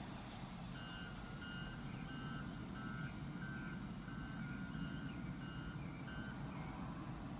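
A vehicle's reversing alarm beeping steadily, about nine short beeps at roughly one and a half a second, starting about a second in and stopping near the end, over a steady low rumble.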